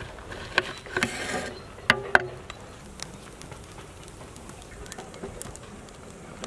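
Metal ladle knocking and scraping against a large metal cooking pot while cooked rice is scooped out: a few sharp clanks in the first two and a half seconds, the last one ringing briefly, then only faint ticks.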